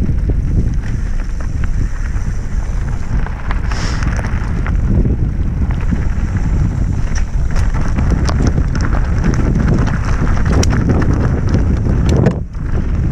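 Wind rumbling on the microphone as a mountain bike descends fast, with the tyres rolling over loose dirt and stones and the bike rattling in many small clicks and knocks. The noise drops briefly near the end.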